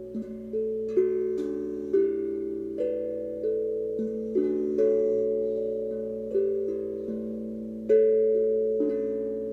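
Steel tongue drum played slowly: single struck notes at uneven intervals, a new one every half second to a second, each left to ring and overlap the last.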